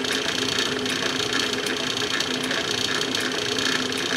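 Atlas metal shaper running steadily, its ram stroking back and forth under a continuous motor and drive whir.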